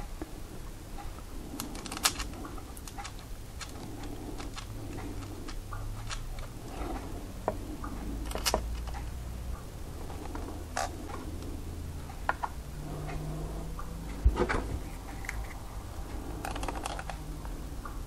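Hands working on a Flysky FS-ST8 radio control transmitter: scattered small clicks and taps of its plastic case and small switch parts as a switch is fitted, the sharpest click about fourteen seconds in.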